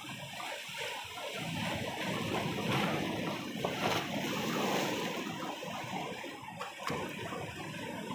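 Sea waves breaking and washing against shoreline boulders: a steady rush of water that builds toward the middle and eases off a little.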